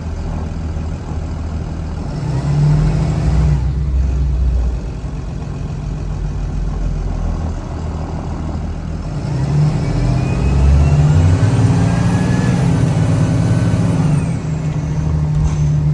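Blue Bird All American school bus engine running and pulling away, with a whine that rises in pitch about nine seconds in, holds, then drops off near the end.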